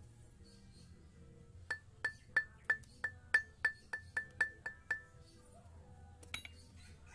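Steel flywheel of a Suzuki F6A engine struck about a dozen times with a hammer, roughly three blows a second, each blow ringing with a clear metallic tone. The flywheel is being hammered to free it from the crankshaft.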